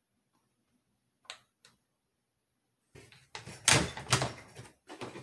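Two faint clicks, then the bolt of a Thompson/Center Compass bolt-action rifle being worked: a run of clacks and sliding metal sounds about three seconds in as it is opened and closed to re-cock the trigger for the next pull measurement.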